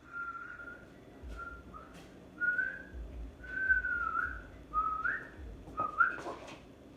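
A person whistling a short tune: about six held notes, several sliding up in pitch at the end, with a few light knocks between them.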